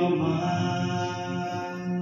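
A man and a woman singing a Khasi song together to guitar accompaniment, holding long, steady notes.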